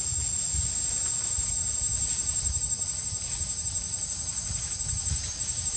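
Steady high-pitched drone of insects, one unbroken whine with no pauses, over a low irregular rumble.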